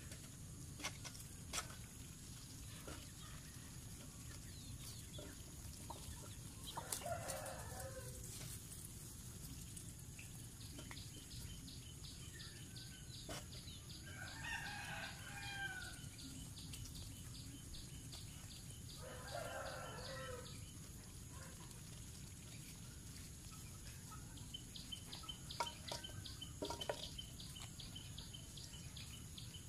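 Rooster crowing three times, each crow lasting about a second and a half, with a fast high ticking in the background.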